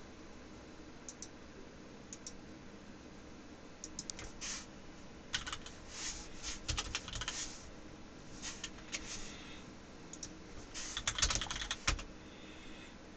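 Typing on a computer keyboard: scattered keystroke clicks in irregular bursts, busiest about halfway through and loudest near the end.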